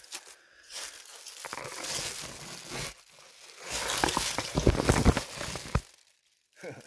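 Dry grass, weeds and dead leaves crunching and rustling as someone pushes through them on foot, with crackly snaps that build to their loudest in the middle and then break off suddenly near the end.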